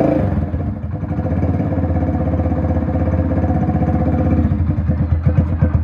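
Hero Honda CD 100 SS single-cylinder four-stroke engine idling through a fitted Yamaha RX 100 silencer, just after being kick-started. Individual exhaust beats become more distinct near the end.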